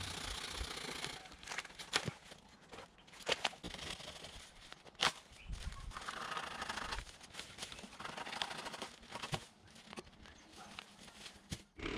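Mountain bike being ridden along a woodland trail: tyre and riding noise comes and goes in short spells of hiss, with several sharp knocks and rattles from the bike over the rough ground.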